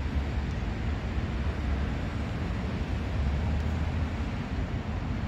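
A distant diesel locomotive approaching on the main line, heard as a steady low rumble.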